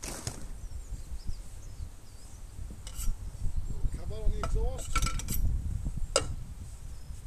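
A low rumble of wind on the microphone, with a few sharp knocks and clanks about three, five and six seconds in, as a tarpaulin is handled and someone climbs onto an old JCB 3 backhoe; a short wavering call shortly after four seconds. No engine is running.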